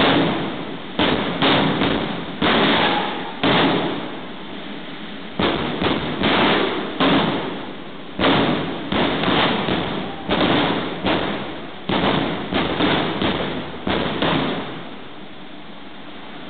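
Jet funny car's jet engine running at the start line and fired in a rapid, irregular string of afterburner blasts, each a sudden loud whoosh that fades within a second. The blasts stop about fifteen seconds in, leaving the engine's steady rush.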